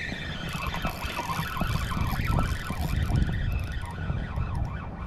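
Spinning reel being cranked steadily as a hooked fish, a starry flounder, is reeled in, its gears giving a continuous whirring hiss, with wind rumbling on the microphone.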